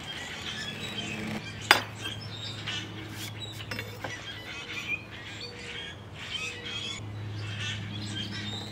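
Birds chirping over a low steady hum, with one sharp click about two seconds in.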